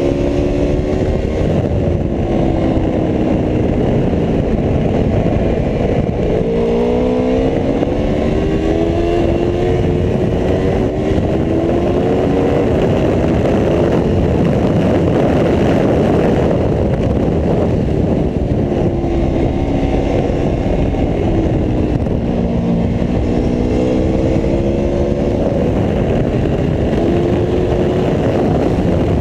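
Aprilia Tuono V4 1100RR's V4 engine at speed on track, revving up and falling back again and again through gear changes and braking, over a loud, steady rush of wind and road noise.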